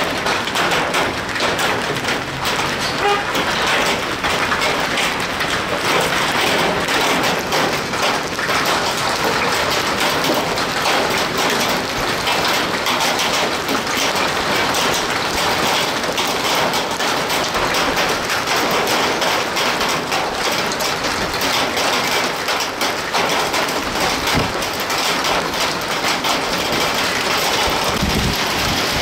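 Hail and heavy rain falling hard: a steady, dense clatter of countless small impacts on pavement, vehicles and metal roofing.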